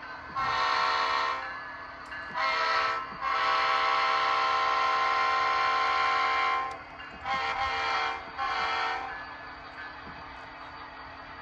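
Horn of a sound-equipped model locomotive blown in five blasts: a one-second blast, a short one, a long one of about three seconds, then two short ones.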